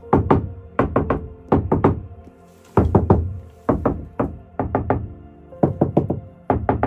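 Knuckles rapping on a VW T5 van's steel roof panels in quick bursts of four or five knocks, some panels lined with foil sound-deadening mat and some with the factory deadening. It is a knock test of the two, and the mat-lined panels sound quieter than the factory ones.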